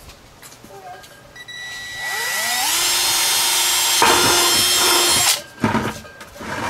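Red Milwaukee cordless drill boring through the plastic wall of a 5-gallon bucket: the motor spins up about two seconds in, runs steadily under load, then stops suddenly after about three seconds. A couple of knocks follow near the end.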